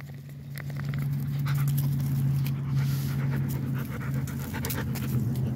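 Dog panting and sniffing with its nose right at a phone's microphone, with irregular small clicks and rustles as it touches the phone, over a steady low hum.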